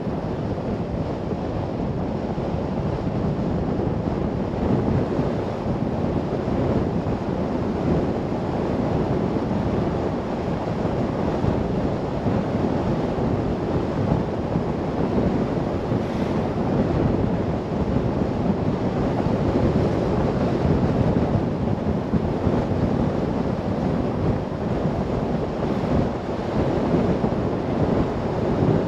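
Steady road and wind noise of a moving car: an even, low rumble with no changes.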